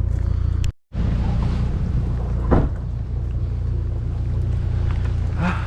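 Vehicle engine running with a steady low drone, cutting out for a moment under a second in, with a short knock about two and a half seconds in.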